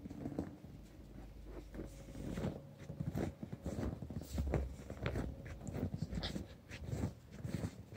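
A small dog panting and moving about on packed snow, with irregular crunching steps in the snow.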